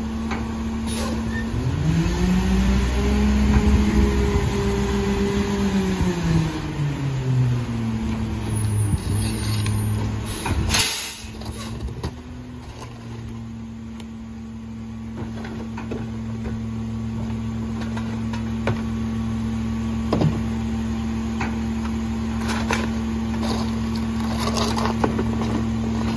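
McNeilus rear-loader garbage truck's engine idling, then revving up for several seconds and easing back down to idle as the rear packer runs. A loud clunk comes partway through, and there are scattered knocks of trash carts being tipped into the hopper by hand.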